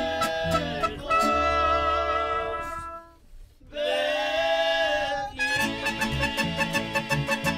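Mexican band music with a singing voice and long held instrumental notes. It breaks off briefly about three seconds in, then resumes with a steady strummed rhythm.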